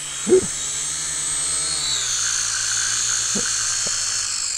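The brushed motors and propellers of a Bao Niu HC629W folding toy quadcopter whirring at a steady high whine while it is held in the hand, having restarted on their own after the throttle was cut and it had stopped. The pitch drops as the motors wind down near the end.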